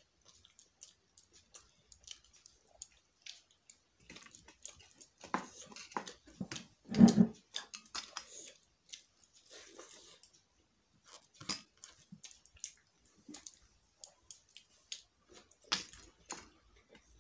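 Close-up eating sounds: a person mixing rice by hand on a plate and chewing, with many small wet clicks. A louder dull sound comes about seven seconds in.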